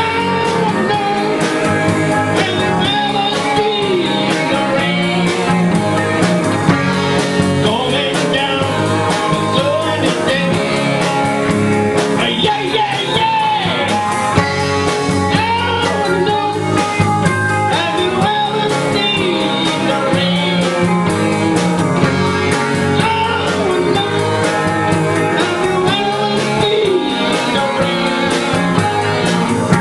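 Live amplified rock band playing: a man singing into a microphone over electric guitars and a drum kit.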